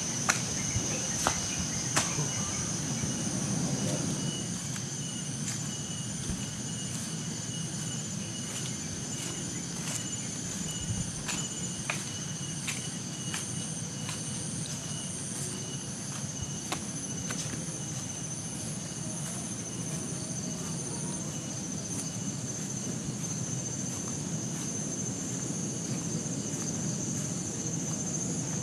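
Insects calling on a mountainside: a steady high-pitched buzz that does not let up, with a second, pulsing chirp beneath it. A low rumbling background runs underneath, and scattered sharp clicks come now and then, most of them in the first half.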